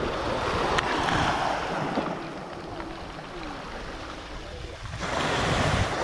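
Small waves breaking and washing up a pebble beach, swelling twice, with wind rumbling on the microphone.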